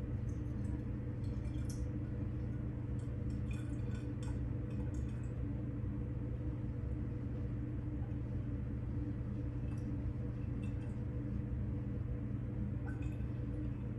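A steady low hum runs throughout, under faint scattered clinks and small liquid sounds as yeast water is added to the bottles.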